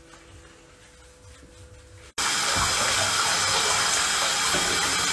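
Faint steady hum, then about two seconds in an abrupt cut to a bathtub faucet running at full flow, the water pouring onto a ferret held under the stream and splashing into the tub.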